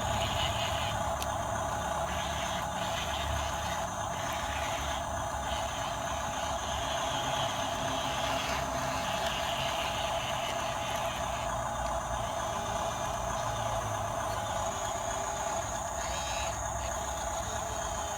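Radio-controlled construction models running: a steady whine and hum from their small motors over a low rumble, unchanging throughout.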